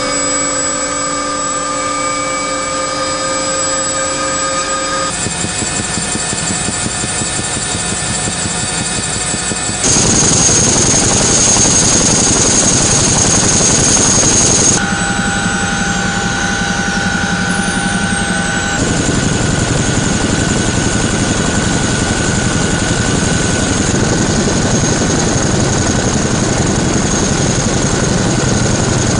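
CH-47F Chinook helicopter's twin turboshaft engines and rotors running: a steady turbine whine over a heavy rush. The sound shifts abruptly several times, loudest for a few seconds in the middle.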